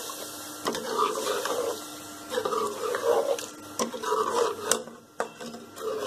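A spoon stirring chicken pieces in a thin yogurt gravy in a metal pot, in repeated scraping strokes about once a second, with a few sharp clicks of the spoon against the pot.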